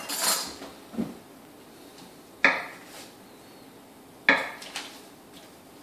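A kitchen knife cutting through a stick of butter and knocking down onto the board beneath: two sharp knocks about two seconds apart, each ringing briefly, after a short rustle and a light click.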